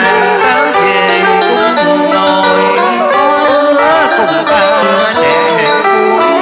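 A man singing into a microphone over amplified backing music with plucked string instruments.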